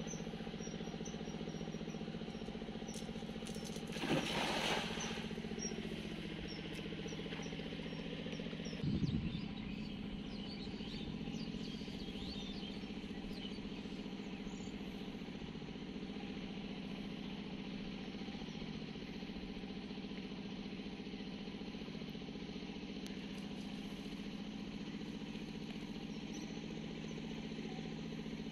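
A steady low motor hum with several pitched tones runs throughout, with faint bird chirps. About four seconds in, a cast net lands on the pond with a brief splash, and a short thump follows about nine seconds in.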